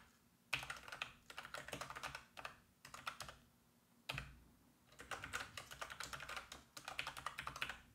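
Faint typing on a computer keyboard: two runs of rapid keystrokes with a short pause between them, and one duller knock about four seconds in.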